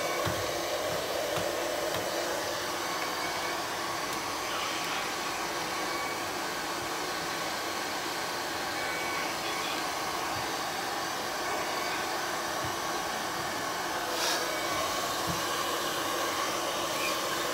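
Household hair dryer blowing steadily on a low-power home setting, heating thin peel-and-stick wallpaper to stretch it and work out air bubbles and wrinkles.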